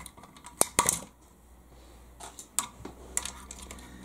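Sharp clicks and taps of a small screwdriver prying at the plastic steering parts of an RC truck chassis, two loudest just under a second in, then a few softer ticks.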